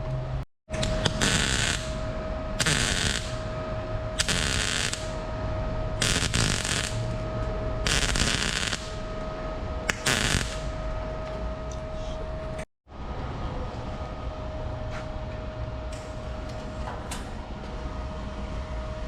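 Exhaust tubing being welded in a series of short bursts, each a crackling hiss under a second long, repeated every couple of seconds over a steady hum.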